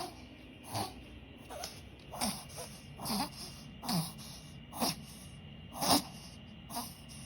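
A Pomeranian reverse sneezing: a run of about nine short, harsh honking inhalations, close to one a second, several dipping in pitch. A vet judged it reverse sneezing and not tracheal collapse.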